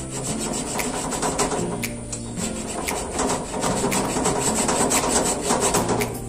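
Mini hacksaw sawing through a blue PVC water pipe, back-and-forth cutting strokes, over background music.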